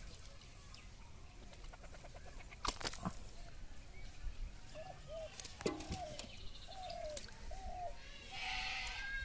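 A chicken clucking in a row of short calls from about five seconds in, with a louder call near the end. Sharp splashes and knocks about three seconds in come from hands working catfish in shallow muddy water.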